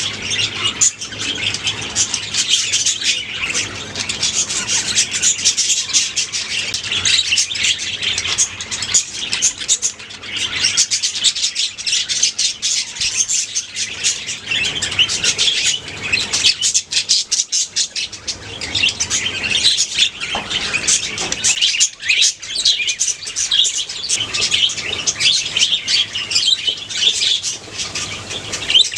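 A colony of budgerigars chirping and chattering nonstop, many birds at once with quick overlapping calls.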